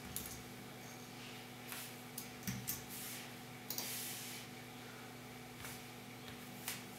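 A hand handling objects on a desk, giving a few short, soft clicks and rustles over a faint steady hum of room tone.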